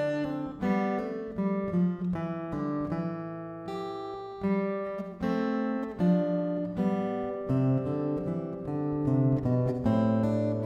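Instrumental acoustic guitar music, with chords strummed and picked and changing every second or so.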